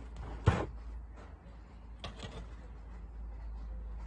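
Handling noise from a chrome gooseneck faucet spout being swung round on its swivel joint: a sharp knock about half a second in and a softer rub or clatter around two seconds, over a low steady hum.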